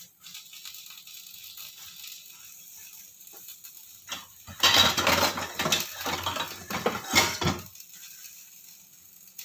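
Kitchen cookware and utensils clattering and knocking, loudest in a burst from about halfway through to near the end, with a few small clinks before it.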